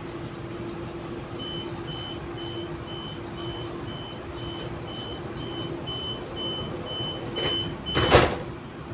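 Door-closing warning on an Auckland AM class electric train: a string of short high beeps, about two a second, then the sliding passenger doors shut with a loud thump near the end. A steady hum runs underneath.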